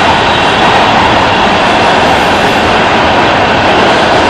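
Inside a Los Angeles Metro Red Line subway car (Breda A650), the steady loud rumble and rush of the train running through the tunnel.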